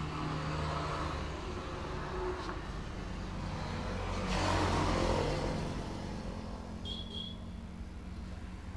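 Road traffic: a steady low motor hum, with a vehicle passing that swells to its loudest about halfway through and then fades.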